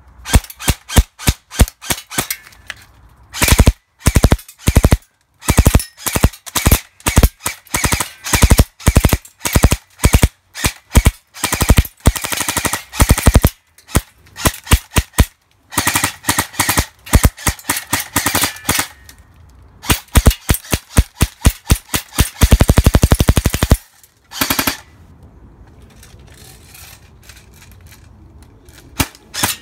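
G&G M4 airsoft electric rifle firing bursts of BBs on full auto, a rapid even rattle of shots broken by short pauses. About two-thirds in comes a longer unbroken burst of several seconds, and the firing stops a few seconds before the end.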